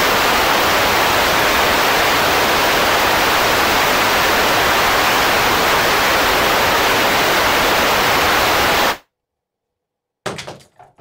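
Loud, steady static hiss like white noise, starting abruptly and cutting off suddenly about nine seconds in.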